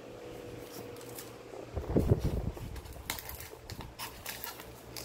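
A small parcel being opened by hand: packaging rustling and being handled, with a louder low thump about two seconds in, then a run of short, sharp crackles.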